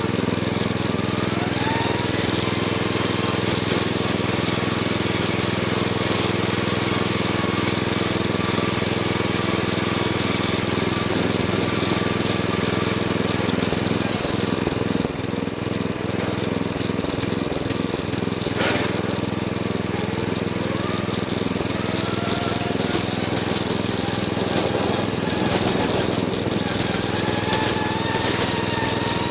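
Riding lawnmower's engine running steadily, close to the microphone on its hood, with a thin whine that rises in pitch about a second in and again near the end. A single sharp knock about two-thirds of the way through.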